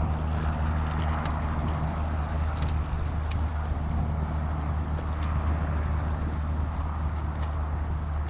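Bombardier Challenger 604's twin General Electric CF34 turbofan engines running at taxi power: a steady low rumble with a hiss above it. Scattered faint high clicks are heard over it.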